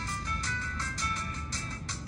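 An LG Marquee phone ringtone playing: a quick electronic melody of short high notes over a steady beat.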